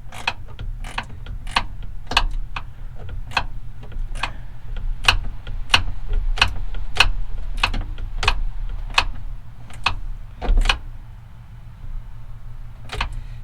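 Socket ratchet clicking in short, repeated strokes, about one to two a second, as a nut is tightened onto a hood-latch bolt, with a louder knock about ten and a half seconds in. A steady low hum runs underneath.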